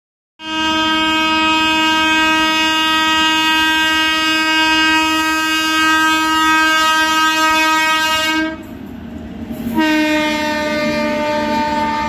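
Indian Railways electric locomotive horn sounding one long continuous blast. It breaks off about eight and a half seconds in and sounds again a second later, over the noise of the passing trains.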